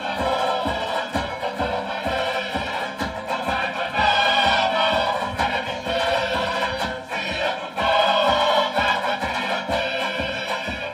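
A live Tongan string band plays tau'olunga music: strummed guitars and a drum keep a steady beat under group singing. The singing swells louder about four seconds in and again near eight seconds.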